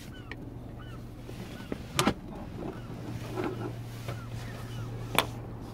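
Plastic clicks and knocks from handling the glovebox retaining clips behind the dashboard: a loud double knock about two seconds in and a single sharp click near the end, over a steady low hum.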